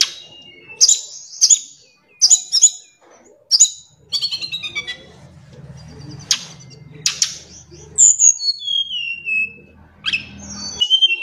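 Caged tledekan gunung singing: short phrases of high, clear whistles and quick chattering trills with pauses between, including a run of falling whistled notes a little past the middle. A faint low hum sits underneath for several seconds in the middle.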